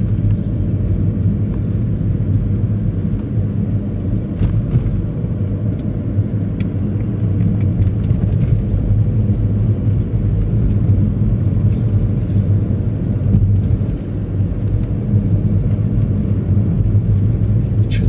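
Car driving at low speed, its steady low road and engine rumble heard from inside the cabin.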